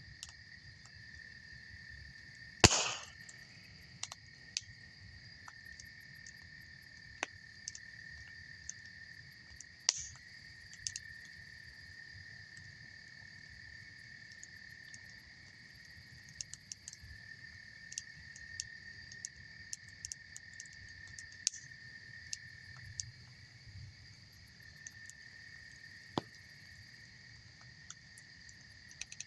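Wood campfire crackling and popping in short, sharp snaps; the loudest pop comes about three seconds in, with smaller crackles scattered throughout. Underneath, insects trill in a steady chorus.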